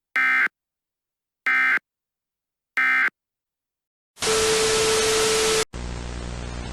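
Three short bursts of Emergency Alert System end-of-message data tones, a harsh digital screech about a second and a half apart. About four seconds in, loud static hiss with a steady tone cuts in, then drops to quieter static with a low hum near the end.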